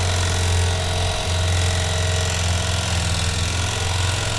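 Corded electric carving knife running steadily with a low buzz, its reciprocating blades sawing down through a watermelon.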